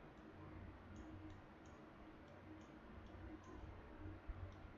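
Near silence with several faint computer mouse clicks scattered through it.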